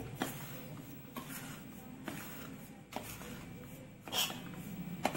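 A spoon stirring a dry mix of ground moong dal, chilli powder, mustard powder and salt in a bowl. It makes a steady gritty rustling, with a sharper scrape or knock of the spoon against the bowl about once a second.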